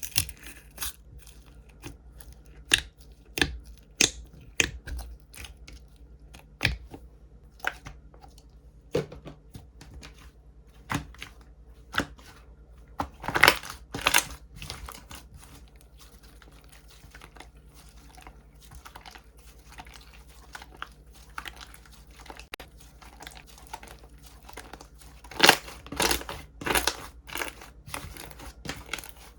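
Slime packaging being unpacked by hand: irregular tearing and crinkling of wrapping, with two louder bursts of rustling partway through.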